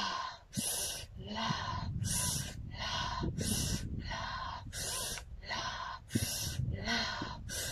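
Rapid, forceful rhythmic yoga breathing: strong alternating inhales and exhales, about two a second, paced to twisting movements of the exercise.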